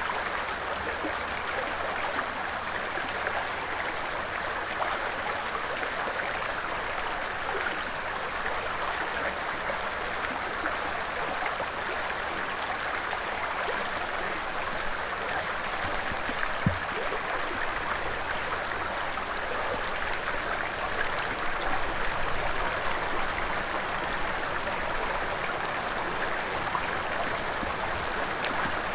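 Steady rushing of a forest stream, with one short low knock a little past halfway.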